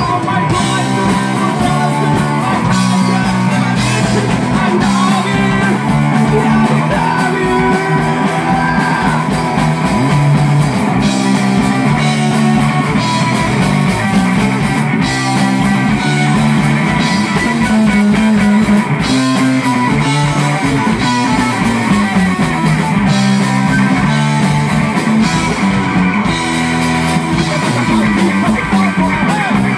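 A rock band playing live: electric bass, electric guitar and drums driving a fast, even kick-drum beat of about four a second, with a sung lead vocal over it.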